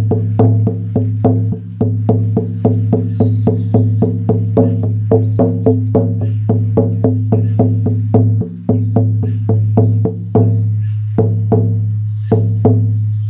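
14-inch horse skin shamanic frame drum on an ash frame, struck with a firm beater in a steady beat of about three to four strokes a second, each stroke a deep boom that keeps ringing between strokes: a big, thick sound. Near the end the strokes space out, and the last one rings on.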